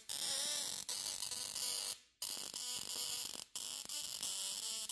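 Small Bluetooth Tesla coil speaker arcing from the points of a star-shaped PCB ornament: a steady static-like hiss and buzz with faint wavering tones. It drops out briefly twice.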